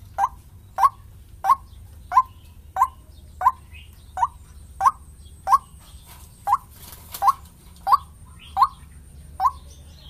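White-breasted waterhen calling: a steady, evenly spaced series of short single notes, about three every two seconds.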